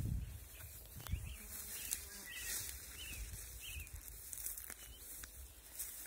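Faint evening birdsong, with a few short warbled phrases about two to three seconds in. Low rumble on the microphone near the start.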